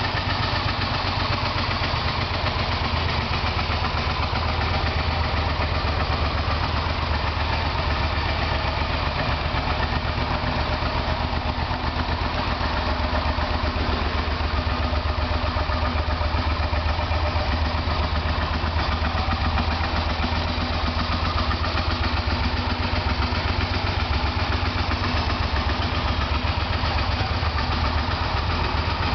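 2002 Suzuki SV650's 90-degree V-twin engine idling steadily, with an even, low pulsing beat and no revs.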